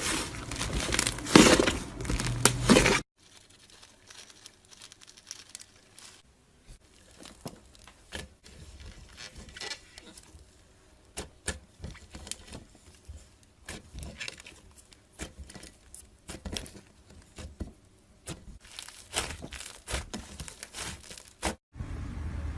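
Slime being played with, giving crackling, popping clicks: dense and loud for about the first three seconds, then after a sudden cut much quieter and more scattered.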